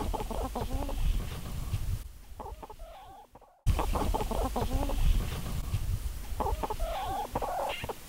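Several hens clucking close by in short repeated calls, over a low rumble. The sound drops off about two seconds in and cuts back in abruptly a moment later, with the clucking louder again near the end.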